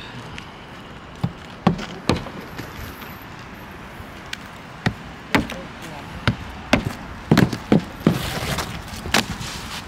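Hammer driving nails into asphalt roof shingles by hand: sharp, separate strikes at an irregular pace, often two close together, with short pauses between and more of them in the second half.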